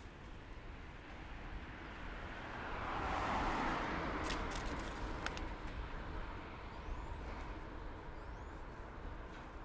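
A car passes close by. Its tyre and engine noise swells to a peak about three seconds in and then fades away. A few sharp clicks follow just after the peak.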